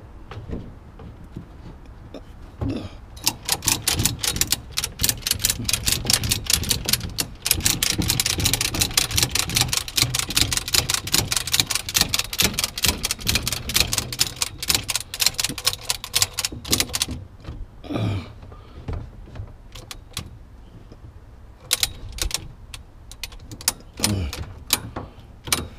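Ratcheting truck-bed cargo bar being pumped out to length, its metal ratchet clicking in a fast run for over ten seconds, then a few scattered clicks near the end.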